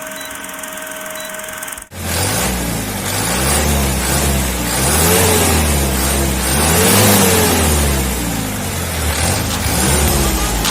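Truck engine being revved up and down several times during an engine check, its pitch rising and falling with each rev. This follows a short steady hum that cuts off about two seconds in.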